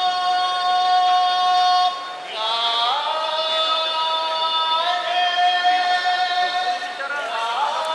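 A yobidashi's sung call of the wrestlers' names: one high male voice holding long drawn-out notes, sliding to a new pitch about two and a half seconds in and again near the end.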